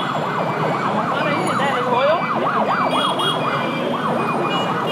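Electronic siren yelping, its pitch swinging rapidly up and down about four times a second, over steady street traffic. It fades somewhat after about three seconds.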